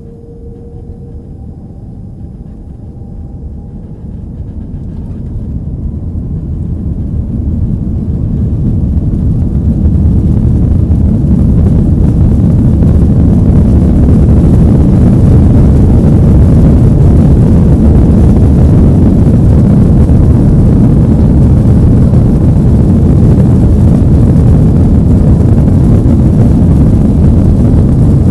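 Airbus A330's jet engines heard from inside the cabin, spooling up to takeoff thrust. A faint whine rises in pitch over the first few seconds. The sound then builds for about ten seconds to a loud, steady, low-heavy engine noise as the airliner accelerates down the runway.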